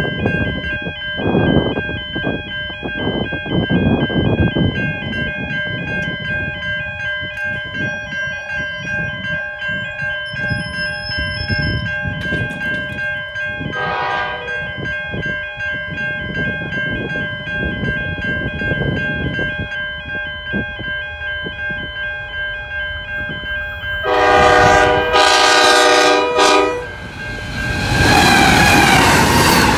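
93 class diesel locomotive approaching a level crossing at speed, with the crossing's warning bells ringing steadily throughout over the rumble of the train. Its horn gives one short blast about halfway through, then two long blasts near the end, and the locomotive passes in a loud rush of engine and wheel noise in the last couple of seconds.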